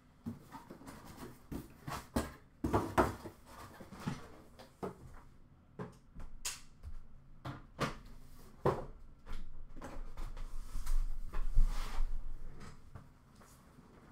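Cardboard product boxes being handled and moved at storage shelves: a run of knocks, clicks and light thuds, with a longer, louder rustling scrape around eleven seconds in.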